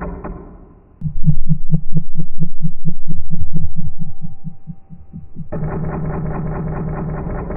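Low rhythmic throbbing. A dense low buzzing fades out at the start, and about a second in a run of quick low thuds begins, about five a second, with a faint steady high tone joining midway. The dense buzzing cuts back in abruptly a little past halfway.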